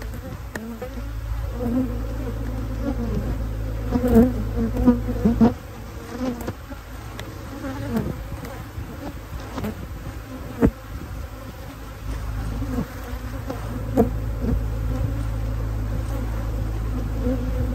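Honey bees buzzing in a swarm around an open hive while its brood frames are pulled, over a steady low hum. A few sharp knocks of hive frames and boxes being handled, the loudest about four to five seconds in.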